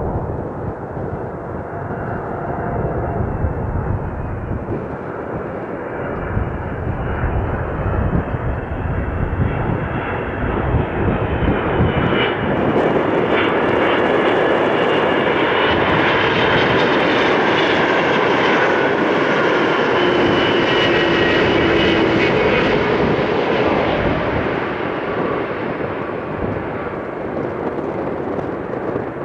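Twin-engine widebody jet airliner on final approach with gear down: a steady rush of engine noise with high whining tones. It grows louder to a peak from about halfway through, the tones sliding down in pitch as it goes by, then starts to fade near the end.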